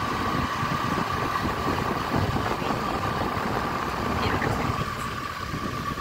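Motor scooter engine running as it rides slowly through town: a steady rumbling hum with a constant high whine above it.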